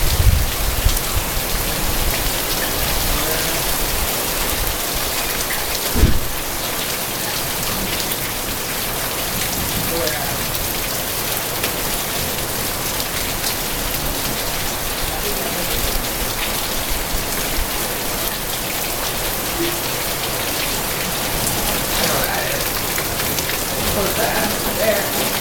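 Heavy rain pouring down in a steady, dense hiss, with a single dull thump about six seconds in.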